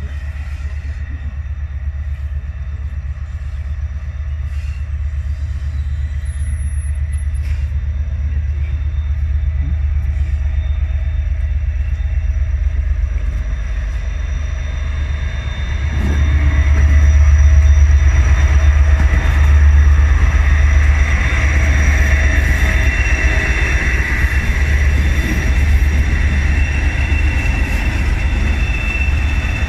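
Diesel locomotives, a Class 57 with its two-stroke EMD engine leading a Class 20, running slowly into the station. The deep, steady engine rumble grows louder and is loudest from about halfway as the locomotives draw level, with a high whistle building in the second half.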